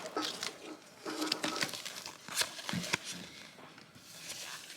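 Foil booster-pack wrapper crinkling and trading cards being handled: an irregular scatter of light crinkles and clicks.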